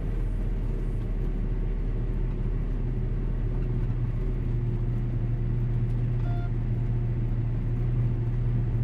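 Vehicle engine running at idle with a steady low rumble that grows a little stronger a few seconds in.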